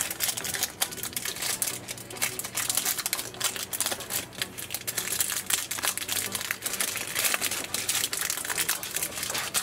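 Foil-lined plastic snack-cake wrapper being torn open and peeled back by hand, with dense, irregular crinkling and crackling.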